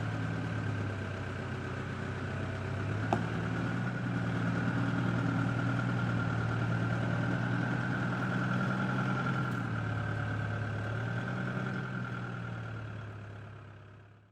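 A vehicle's engine running steadily at low revs, with one sharp click about three seconds in. The sound fades out at the end.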